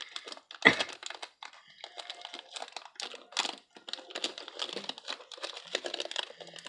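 Candy-bar wrapper crinkling and crackling as it is handled and opened, a string of irregular small crackles with a sharper tear or snap about half a second in.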